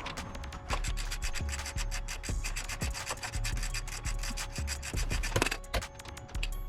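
Rapid clicking and rasping from hand-tool work on a car, with a short dip near the end, over background music.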